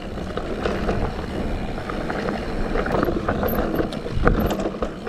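Santa Cruz Heckler electric mountain bike ridden along a dirt singletrack: steady tyre rumble on the trail with the bike rattling and knocking over bumps, a couple of sharper knocks near the middle and towards the end.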